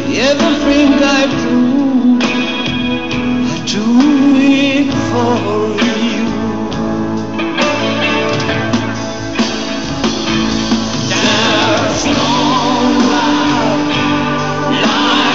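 Live band performance: a male singer sings in English into a microphone, his held notes wavering with vibrato, over a band with guitar.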